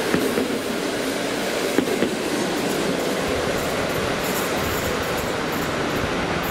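PKP Intercity passenger coaches rolling past on the rails as the train comes into its terminating station: a steady rumble of wheels on track, with a few sharp knocks in the first two seconds and short high wheel squeaks in the second half.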